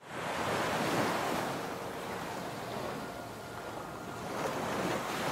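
Ocean surf: waves breaking and washing up a beach. The steady rush eases slightly in the middle and builds again near the end.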